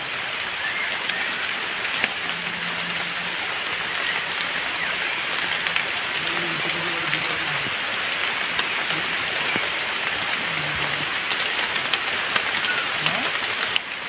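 Steady light rain falling on forest leaves and leaf litter, an even patter with scattered small drop ticks.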